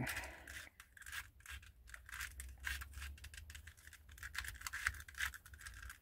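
Faint, irregular run of clicks and scrapes from a resin rook-shaped 2x2 twisty puzzle as its layers are turned by hand through the last moves of a solve.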